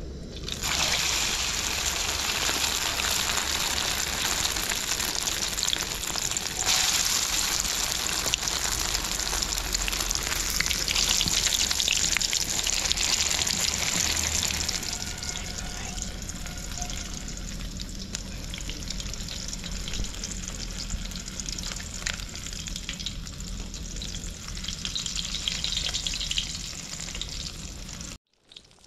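Chicken pieces in a crushed Lay's chip coating sizzling as they deep-fry in hot oil in a kadai with a wire frying basket. The sizzle jumps up loud about half a second in as the pieces go into the oil, then settles quieter about halfway through.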